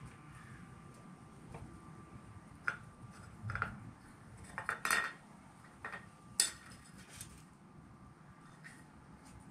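Light knocks and clinks on a hard patio-table feeder, about half a dozen scattered over several seconds and loudest about six seconds in, as an animal handles food or the feeder.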